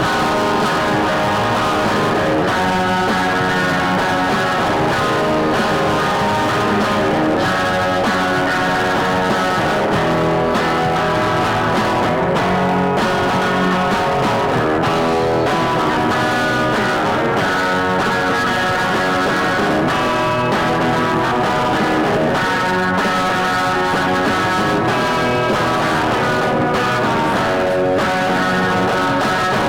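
Guitar-led rock music playing steadily.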